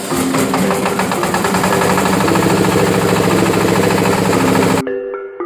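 Diesel engine of a rice milling machine running, with a fast, steady knocking beat and music playing under it. It cuts off abruptly near the end, leaving only the music.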